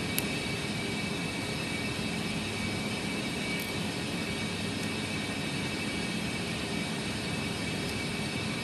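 A steady mechanical background hum, like a fan or air conditioner, with a faint click just after the start and another about three and a half seconds in.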